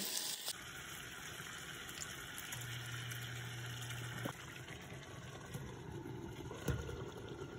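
Spiced chicken drumsticks sizzling in a stainless steel pan as water is poured in over them, then a sharp clink as the glass lid is set on near the end.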